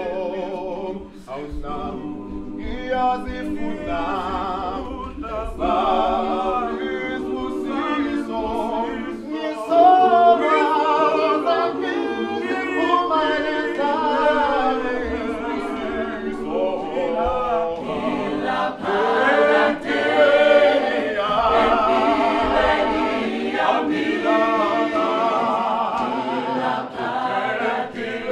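Mixed men's and women's a cappella choir singing a gospel song in several-part harmony, with no instruments.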